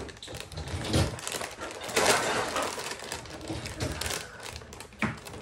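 Clear plastic bag of animal crackers crinkling and rustling as it is handled, with irregular crackly clicks, loudest about two seconds in.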